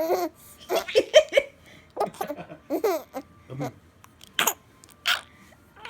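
A baby laughing in short bursts and hiccuping between laughs. The laughs come as quick runs of pulses, and there are two sharp hiccups in the second half. The hiccups come from laughing too hard.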